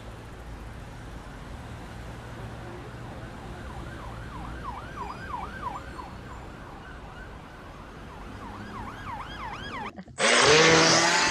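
A low steady hum with a repeating rising-and-falling siren-like wail, heard around the middle and again near the end. About ten seconds in, a sudden loud rush of water comes in with the steady whine of a radio-controlled model boat's motor as the boat speeds off.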